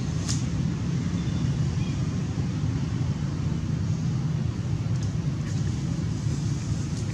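Steady low rumble, with a few faint clicks.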